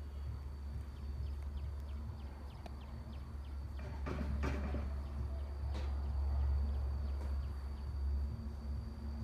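Outdoor ambience: a steady low rumble and a faint steady high-pitched tone, with a run of faint small ticks over the first few seconds. A short noisy burst comes about four seconds in and a smaller one near six seconds. The rooster does not crow.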